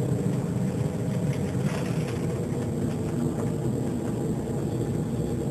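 Propeller airplane's engines and propellers droning steadily, heard inside the passenger cabin.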